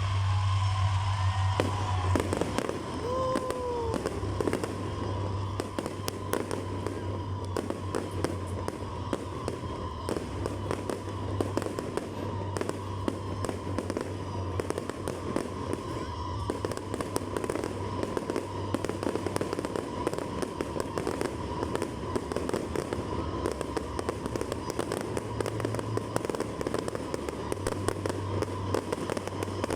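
Fireworks display: rapid crackling and popping, with a couple of short whistles about three seconds in.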